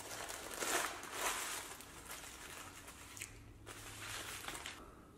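Rustling and crinkling of food and paper wrappers as a burger is handled at a table, loudest about a second in.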